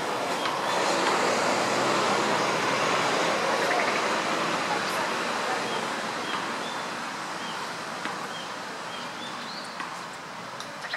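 Steady rushing noise of a passing road vehicle that slowly fades away, with faint short bird calls repeating over it.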